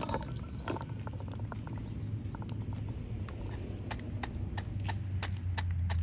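Walnut kernels rattling as they are tipped from a wooden board into a wooden mortar. Then, from about two and a half seconds in, a wooden pestle pounding them in the mortar with regular knocks, about three a second.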